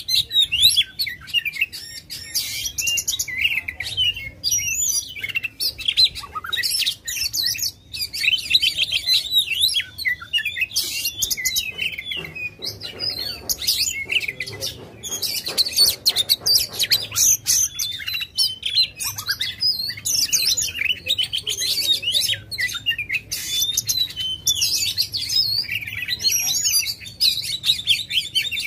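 Oriental magpie-robin (kacer) singing continuously: a loud, fast, varied stream of whistles, chirps and buzzy trills with only brief pauses.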